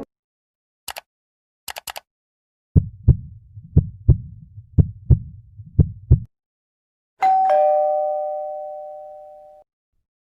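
A few short clicks, then a heartbeat sound effect: four lub-dub pairs of low thumps, about one a second. Then a two-note ding-dong doorbell chime, high note then low, ringing out and fading.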